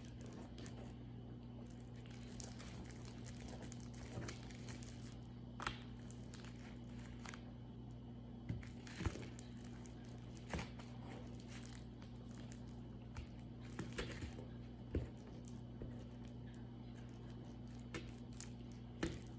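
Slime being mixed and kneaded by hand: faint, scattered squishes, crackles and small clicks over a steady low hum.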